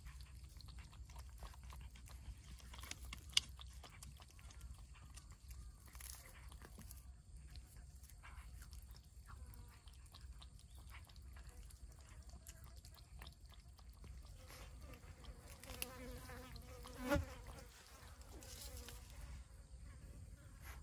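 Stray cats lapping milk and chewing raw fish from bowls, with many small wet clicks and a sharp click about three seconds in. Near the end a fly buzzes close past, loudest for a moment before fading.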